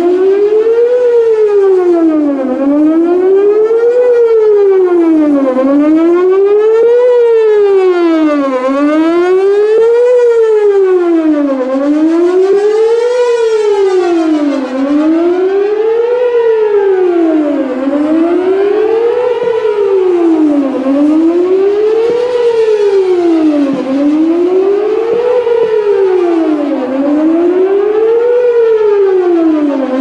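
Whelen WPS-4008 electronic outdoor warning siren sounding the Attack signal in a test: a loud wailing tone that rises and falls between about 250 and 500 Hz, one full cycle roughly every three seconds.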